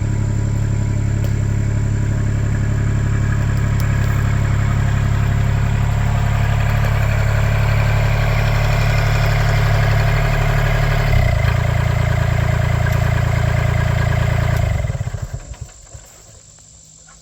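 Kubota L2501 compact tractor's diesel engine running steadily, then shut off about 15 seconds in, sputtering to a stop within about a second.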